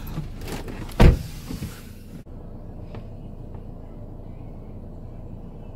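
A car door slammed shut once, about a second in, heard from inside the car as a single heavy thump. After that there is only a quieter steady background.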